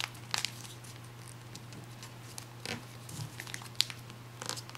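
Origami paper being folded and creased by hand: scattered soft crinkles and taps as flaps are brought in and pressed down, over a steady low hum.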